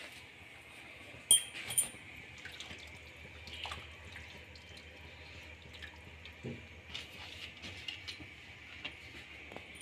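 Faint kitchen handling: a plastic colander of wet chopped spinach and a spoon in a pot of kadhi give two sharp clicks about a second and a half in, then scattered light taps and wet rustles, over a steady faint hiss.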